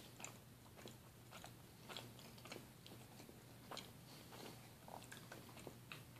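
Faint, scattered wet clicks and smacks of a baby chewing and gumming a spear of cooked asparagus, over a low steady room hum.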